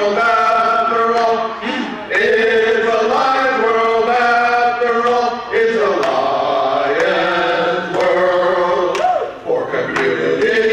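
A barbershop quartet of four men singing a cappella in close harmony, holding long chords with short breaks between phrases.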